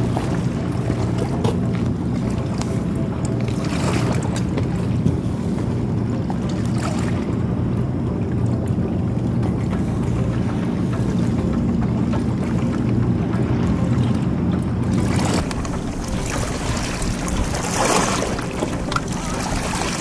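Wind buffeting the microphone: a steady low rumble, with a few brief higher swishes.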